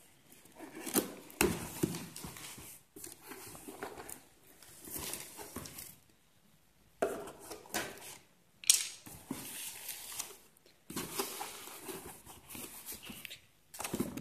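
Cardboard shipping box being torn open by hand: irregular tearing, rustling and scraping of cardboard and packing tape, with a few sharp knocks and a short pause about six seconds in. Near the end, bubble wrap inside is handled.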